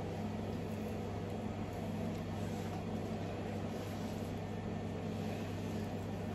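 Steady low machine hum of kitchen equipment, such as a ventilation fan or refrigeration unit, with faint soft strokes of a long knife slicing through a raw salmon fillet on a plastic cutting board.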